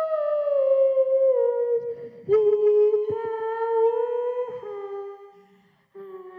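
A child humming long held notes into a handheld microphone, the pitch sliding slowly downward. The note breaks off and starts again about two seconds in and again about four and a half seconds in, fades out, and resumes near the end.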